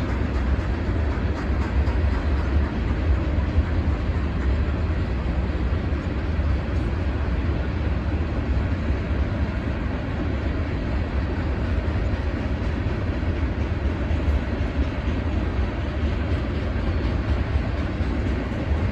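CSX ballast train's cars rolling past on the rails: a steady, unbroken running noise, strongest in the low end.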